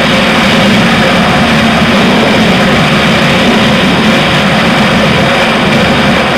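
Honda Wave 125i's single-cylinder four-stroke engine running steadily at high speed, mixed with loud, steady wind rushing over the microphone.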